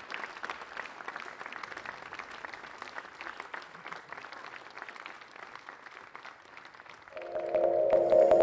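Audience applauding, the clapping slowly thinning and getting quieter. About seven seconds in, ambient electronic music with sustained chords comes in loudly over the last of the applause.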